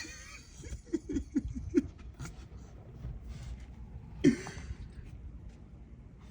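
A man laughing in short breathy bursts, with one louder short vocal cry about four seconds in.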